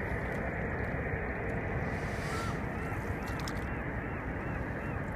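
Steady wash of water and wind noise around a small sailing canoe, with a string of faint, repeated high chirps starting about two seconds in.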